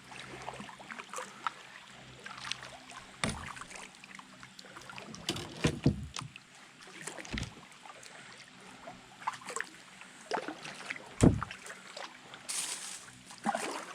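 Kayak paddling: water splashing and dripping off the paddle blades, with scattered ticks and a few dull thumps, the loudest about 11 seconds in.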